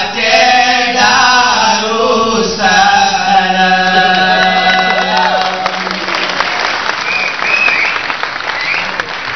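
A group of men's voices chanting in unison in an Acehnese seated-dance song, closing on a long held note, then audience applause begins about six seconds in.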